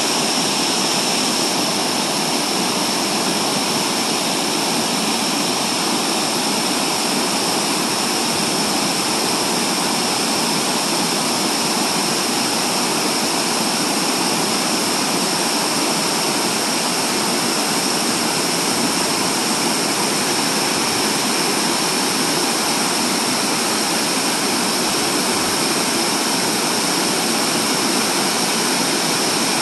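Creek water rushing over stepped rock ledges in small cascades: a loud, steady rush of white water that holds unchanged throughout.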